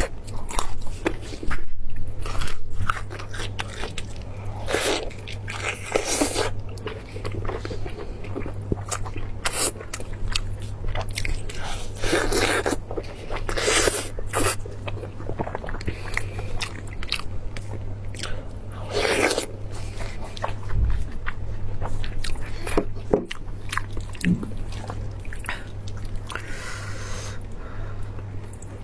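Close-miked mukbang eating: biting into and chewing glazed roast meat by hand, with sharp crunches and clicks and a few louder crunchy bites, over a steady low hum.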